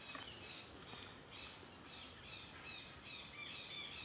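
Faint woodland ambience: a steady high-pitched insect drone with a run of short, repeated chirps.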